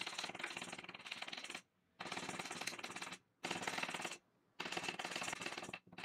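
Small metal hammer tapping rapidly on a twisted brass wire earring lying on a steel bench block, flattening it. Fast light metallic taps come in four quick runs, each one to two seconds long, split by short pauses.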